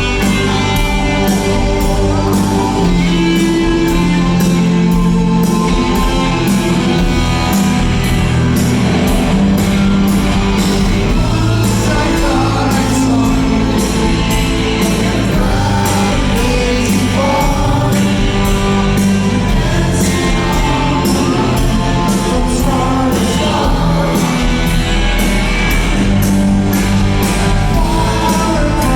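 Live rock band playing loudly, with electric guitars, bass and drums keeping a steady beat, and singing over it, recorded from the audience in a theatre hall.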